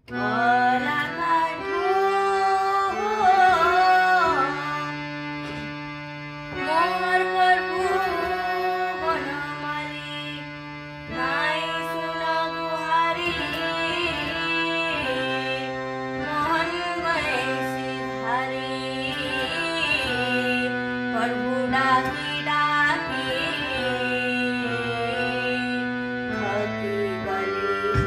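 Electronic keyboard playing a Sambalpuri folk-song melody over the keyboard's built-in tabla-style rhythm accompaniment, with a girl singing along. The music starts right at the beginning.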